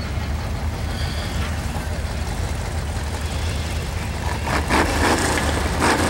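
Engines of several rear-wheel-drive ice race cars running over a steady low rumble, growing louder about four seconds in as the pack comes close.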